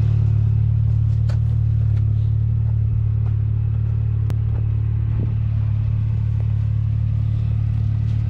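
Can-Am Maverick X3's three-cylinder engine idling steadily, with a few faint clicks and knocks on top.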